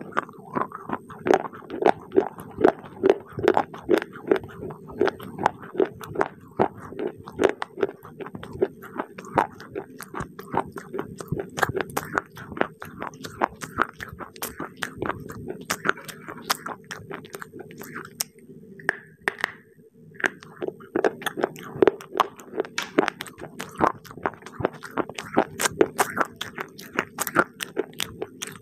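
Brittle baked clay pieces bitten and chewed close to a microphone: a rapid run of sharp crunches, with a short lull about two-thirds of the way through.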